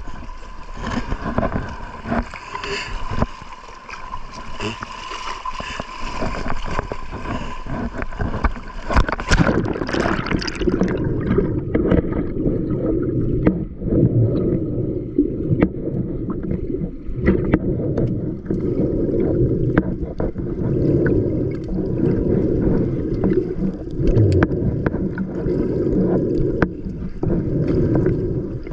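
Seawater splashing and gurgling close to the microphone, with many sharp ticks and crackles. About eleven seconds in, the sound turns muffled and low, a dull churning with the treble gone.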